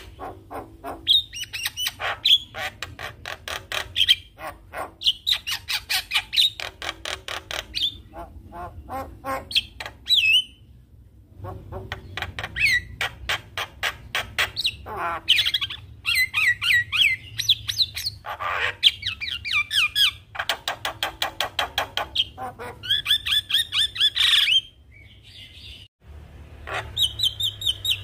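Javan myna singing a long, varied song: fast clicking rattles run together with whistled notes and harsh squawks, with a couple of short pauses.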